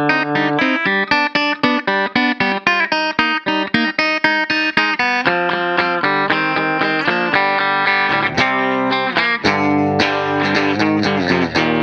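Ibanez RC720 Premium electric guitar, with its Core-Tone humbuckers, playing a lead solo: a fast run of single picked notes, then string bends and longer held notes in the second half.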